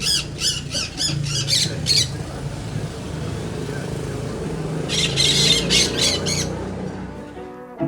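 Parrots squawking harshly in rapid repeated calls as they fight, a quick run in the first two seconds and another about five seconds in, over a steady low hum.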